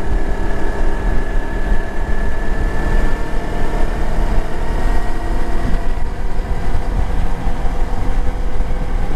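Kawasaki Versys-X 300's parallel-twin engine running at a steady cruising speed, with a heavy rumble of wind noise on the microphone.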